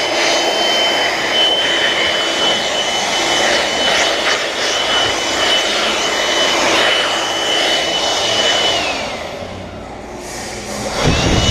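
Shop vacuum running with a steady high whine while the windshield frame is cleaned out. It is switched off about nine seconds in and the whine falls away, then it is briefly run up again near the end.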